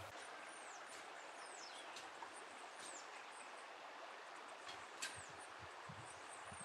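Faint, steady rush of a shallow stream, with a bird giving high whistles that fall in pitch about five times, plus a few faint knocks.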